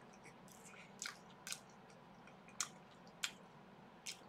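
A mouthful of crisp kakiage vegetable tempura being chewed: about five quiet, sharp crunches at irregular intervals.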